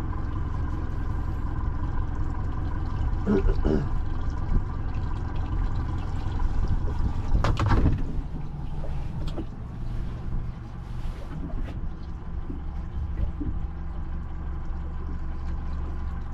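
Boat's motor running steadily at trolling speed, a low steady hum, with a brief louder rush about seven and a half seconds in.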